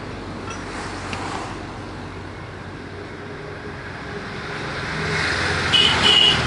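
Steady road traffic noise that swells near the end as a vehicle draws closer, with two short high beeps at the loudest point.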